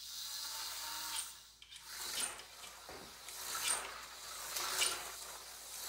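Aurora slot car running laps on a small oval track: the high, buzzy whir of its tiny electric motor and pickups on the rails, swelling and fading about every second and a half as the car comes round.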